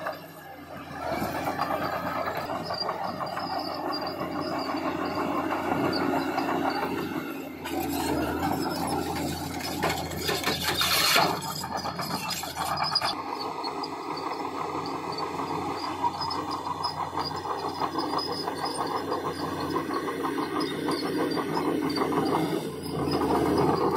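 Heavy construction machinery working: steady engine and mechanical running noise, with a brief loud hiss about halfway through.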